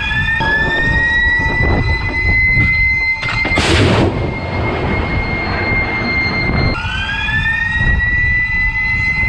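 Shipboard RIM-116 Rolling Airframe Missile launcher: a high whine rises in pitch and then holds steady, and about three and a half seconds in a missile launches with a short, loud rushing blast. About seven seconds in, the rising whine starts again for the next launch.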